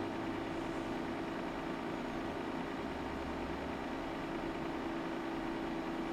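Cooling fans of bench test equipment running: a steady hum over an even hiss.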